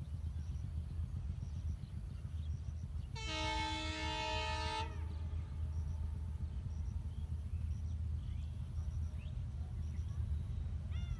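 Horn of an approaching train's locomotive, heard from afar: one blast of about two seconds, several notes sounding together, about three seconds in, over a steady low rumble. A few faint bird chirps near the end.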